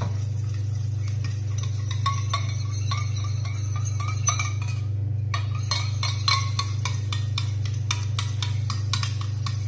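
A white spatula stirring a powder-and-oil mixture in a small stainless steel pot, with frequent light clinks and scrapes against the metal. A steady low hum runs underneath and is the loudest sound.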